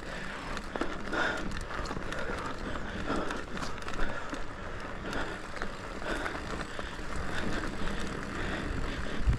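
Cross-country mountain bike ridden over a rough dirt trail: steady tyre noise with scattered clicks and rattles from the chain and bike.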